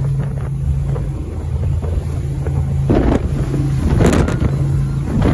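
Powerboat engine running steadily at speed, heard from on board, under a rushing of wind over the microphone and water. There are two brief louder bursts about three and four seconds in.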